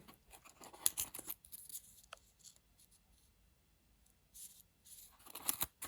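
Handling noise from a box of small watch parts being opened and looked through: light clicks, scrapes and rustles in scattered bursts, with a brief squeak about two seconds in.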